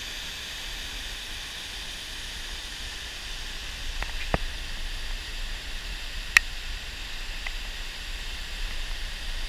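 Steady rushing of a stream's cascade tumbling in white water over rock ledges. A few sharp clicks cut in about four seconds in, and a louder single click about two seconds later.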